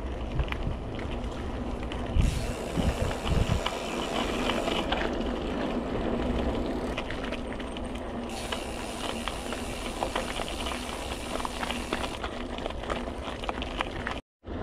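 Mountain bike tyres rolling over a gravel path: a steady crunching hiss with many small clicks of stones and rattles from the bike, over a low rumble of wind on the microphone. It drops out for a moment near the end.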